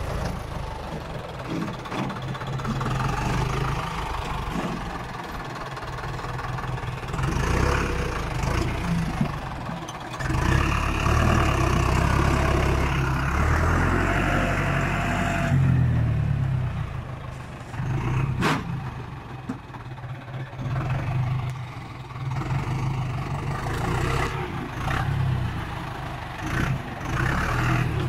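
Farm tractor's diesel engine running under load as it pulls a disc plough through the soil. It is loudest for several seconds about halfway through, then eases back.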